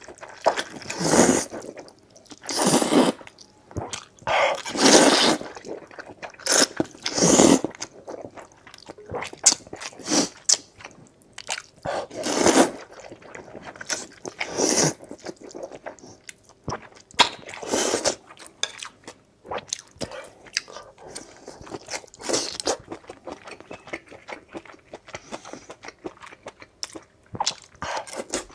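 Close-miked slurping of translucent noodles out of a chili broth: a loud, wet pull every couple of seconds, with chewing in between. Later the pulls thin out into smaller, quicker wet chewing clicks.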